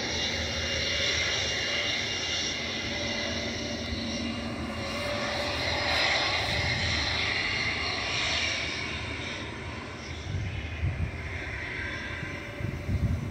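Spirit Airlines Airbus A320neo jet engines at takeoff power as the airliner rolls down the runway: a steady rushing roar with a high whine, loudest about six seconds in. A low rumble grows near the end.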